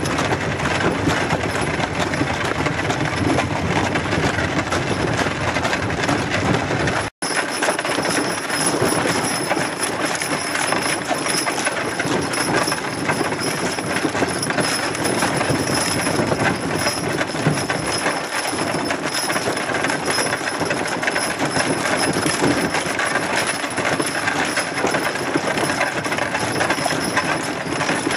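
Horse-drawn wagon rolling along a gravel road: a steady rattle and crunch of the wheels and running gear, with metal harness hardware jingling. The sound drops out for an instant about seven seconds in.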